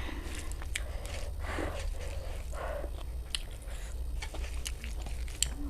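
Close-miked chewing and mouth sounds of someone eating, wet smacks with a few sharp clicks, over a steady low hum.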